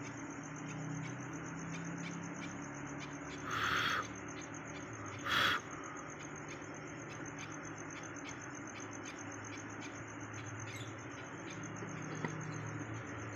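Caged birds calling: a steady high-pitched chirping that pulses a few times a second, broken twice by a short harsh hiss-like burst, about three and a half seconds in and again two seconds later.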